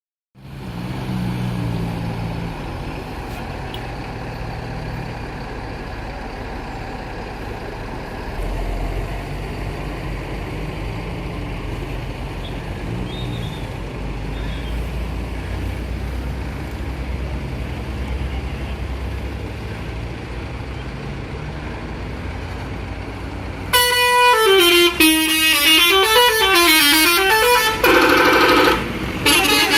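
Low engine and traffic rumble for most of the stretch, then, about 24 seconds in, a bus's 'telolet' musical horn plays loudly: several tones at once sliding up and down in a warbling tune, with a held chord briefly near the end.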